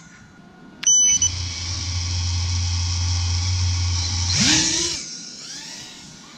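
Leader 120 micro quadcopter's brushless motors with Gemfan Flash 2540 three-blade props. A short high beep comes about a second in, then the motors spin at idle with a steady hum for about three seconds. Near the end they throttle up in a sharp rising whine as the quad lifts off, and the sound quickly fades as it flies away.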